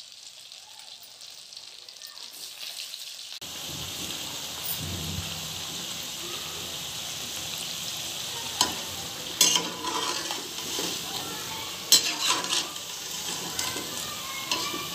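Potato pakoras deep-frying in hot oil in a kadai: a steady sizzle that gets fuller and louder about three seconds in. A few sharp clicks stand out in the second half.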